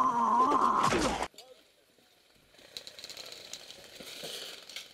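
A loud, wavering vocal cry that cuts off abruptly just over a second in. After a brief near silence come faint rattling and scattered clicks.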